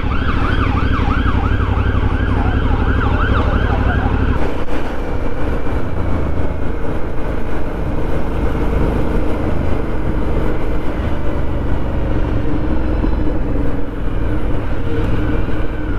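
Police car siren yelping rapidly up and down over a motorcycle's engine, stopping abruptly about four seconds in; the motorcycle engine then runs on alone with road noise.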